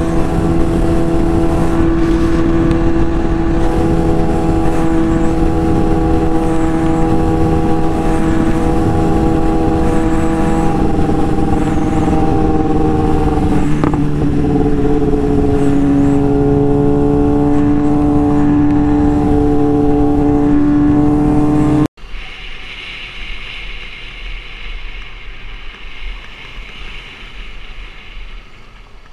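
Motorcycle engine held at high revs at speed, a loud steady drone with wind rush, its pitch dropping slightly about halfway through. About 22 s in it cuts off suddenly to much quieter street traffic noise.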